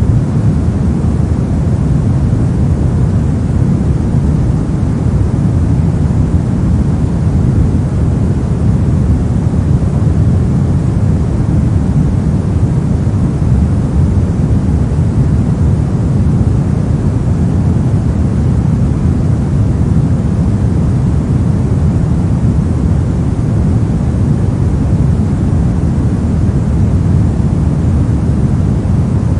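Steady pink noise, a continuous even hiss-rumble with most of its weight in the low end and no change from start to end.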